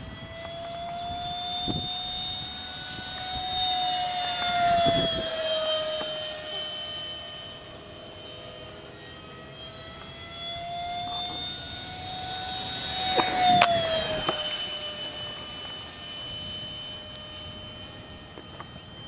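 Electric ducted fan of a model F-5E jet, a Wicked 4800 motor spinning the stock fan on a 3S lipo, whining steadily in flight. It passes twice, growing louder with the pitch dropping as it goes by each time, the second pass being the loudest.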